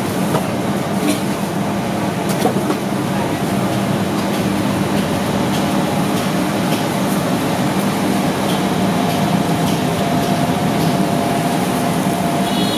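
A steady, loud mechanical hum and rush of noise, like a motor or fan running, with faint voices under it and a few light clicks in the first three seconds.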